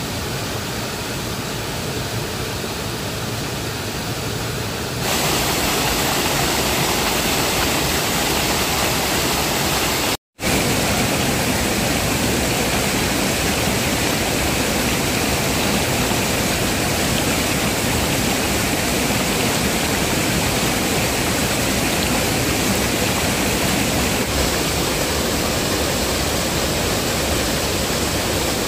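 Small waterfall and rocky stream cascade rushing steadily. It gets louder about five seconds in and cuts out for a split second about ten seconds in.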